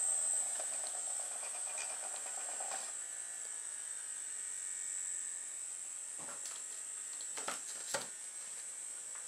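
Small motor from a cheap vibrating toothbrush running with a steady high-pitched buzz, driving a toy car's wheel through a rubber-band pulley that is slipping, so the car is slow to get up to speed. A lower hum drops out about three seconds in, and a few light knocks come near the end.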